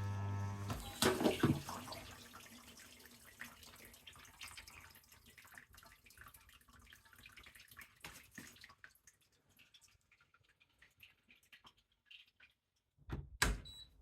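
Dishwasher humming loudly, a fault hum that sets in after about 25 minutes of running; it cuts off under a second in with a clunk. Water then trickles and drips inside the machine, fading away, and a single heavy thump comes near the end.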